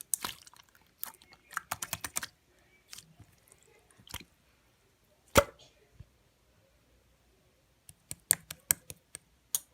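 Translucent light-green slime being worked by hand, giving irregular sticky clicks and pops, with one louder pop about five seconds in and a quick run of clicks near the end.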